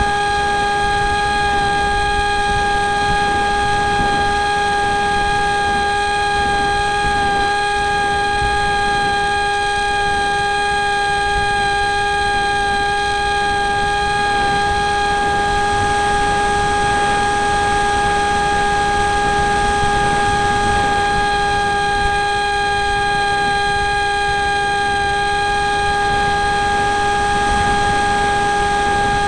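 Electric motor and propeller of a Flying Wings Slipstream RC flying wing in flight, heard from the onboard camera. It gives a steady, high-pitched whine at constant throttle, with a rough rush of air against the microphone underneath.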